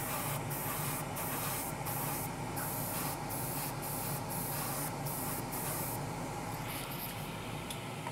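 Airbrush misting paint in short hissing passes, the air breaking briefly between them about twice a second, then stopping about six seconds in. An extractor fan hums steadily underneath.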